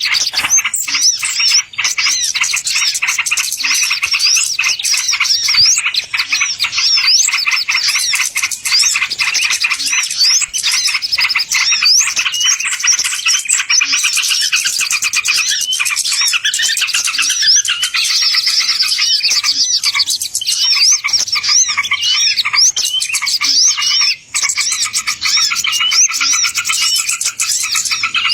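Small birds chirping and twittering in a dense, unbroken chorus of rapid high notes and short rising and falling sweeps. This is a bird-lure call recording.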